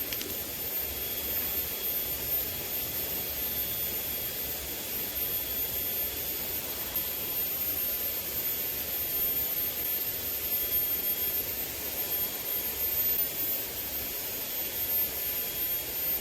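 Steady rushing noise of a small river's flowing water, even throughout with no distinct splashes.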